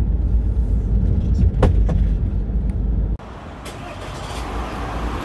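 Van driving, with a steady low engine and road rumble heard from inside the cabin and a single sharp click about a second and a half in. About three seconds in, it cuts to a quieter, steady hiss.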